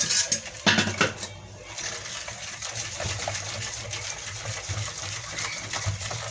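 A hand mixing wet whole-wheat baghrir batter in a plastic bowl: squelching and slapping of the wet mix, with a few sharper slaps in the first second.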